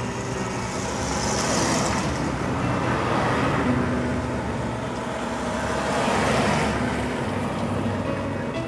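City street traffic: car and bus engines running with a steady low hum, the noise swelling and fading a few times as vehicles move past.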